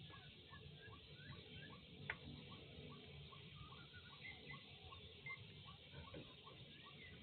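Faint animal chirping, short calls repeated about three times a second, with a single sharp click about two seconds in.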